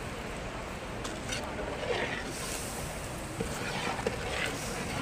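Steady rushing noise, even and unbroken, with a few faint voice-like sounds over it.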